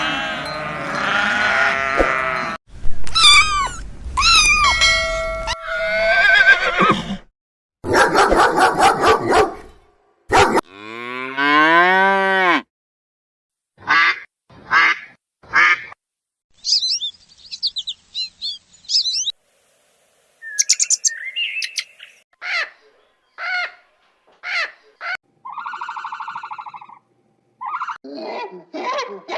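A string of different animals' calls, one clip after another, each a few seconds or less, some separated by brief silences; mooing cattle are among them.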